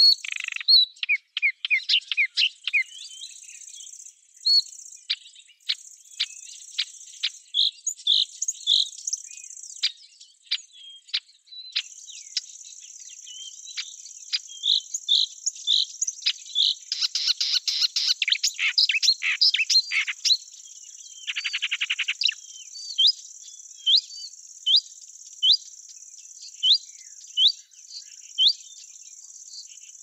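Small birds chirping with short, repeated high notes, about one a second in the second half, over a steady high insect trill. A buzzy rattling trill sounds about halfway through, for some five seconds.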